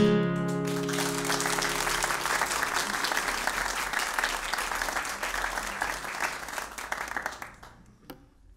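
A final strummed chord on a handmade nylon-string classical guitar rings out and fades over a second or so, while the audience applauds. The clapping lasts about seven seconds and dies away near the end.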